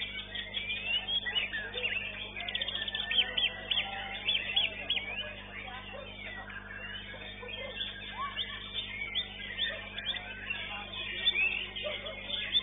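White-rumped shama (murai batu) singing at a bird-song contest: a stream of sharp whistled chirps and upward sweeps, with a burst of fast trills a few seconds in, over a steady low hum.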